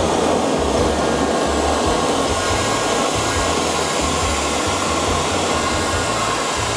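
Hair dryer blowing steadily into a charcoal barbecue, fanning the lit wood charcoal to get it burning.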